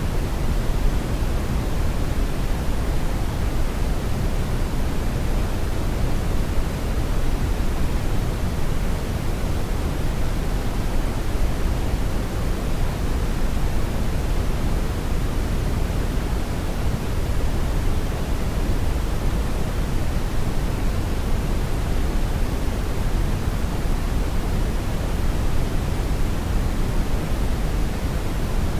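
Brown noise: a steady, even rumbling hiss, heaviest in the low end and falling off toward the highs, with no changes.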